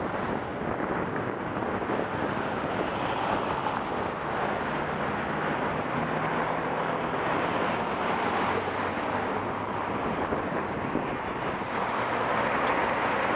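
Wind rushing over the microphone of a camera on a moving bicycle, mixed with the steady noise of city traffic: car engines and tyres on the road. A faint low engine hum from a nearby car runs through the middle.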